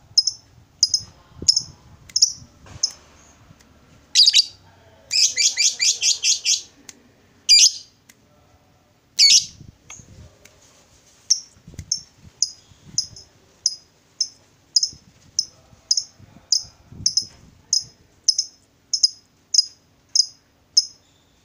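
Fischer's lovebird calling to a rival with sharp, high-pitched shrieks. A few spaced calls give way to a fast run of about eight about five seconds in, then from about eleven seconds to an even string of calls, a little under two a second.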